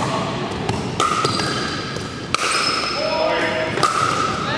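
Sharp hollow knocks of pickleball paddles striking plastic balls, several in a few seconds, echoing in a large gym hall.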